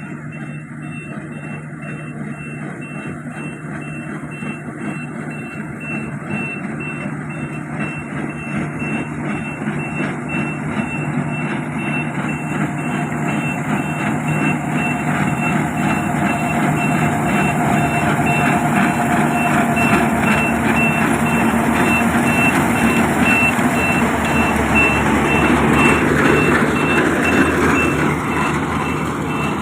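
Yanmar Y700 combine harvester's engine running steadily and growing louder as the machine comes closer, with its warning beeper sounding a fast, even string of high beeps.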